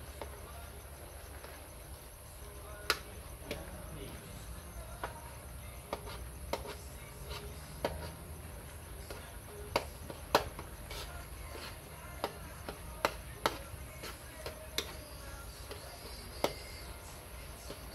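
Metal ladle knocking and scraping against a steel wok as fish simmering in sauce is stirred: irregular sharp clinks, about fifteen of them, most frequent and loudest in the middle.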